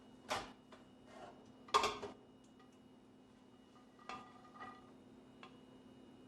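Kitchen utensils and dishes knocking and clinking during food portioning: a handful of separate knocks, the loudest about two seconds in. One knock a little after four seconds rings briefly.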